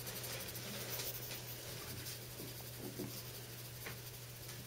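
Graphite pencil scratching softly on paper in short shading strokes, blending dark to light tones, over a faint steady low hum.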